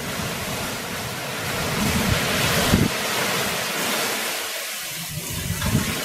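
Strong, near-storm gusting wind rushing through trees and buffeting the microphone. It swells louder about halfway through.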